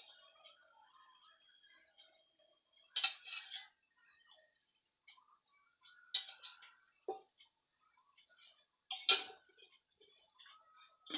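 Scattered light clinks and taps of metal kitchenware, with a few short clusters and a louder sharp clink about nine seconds in.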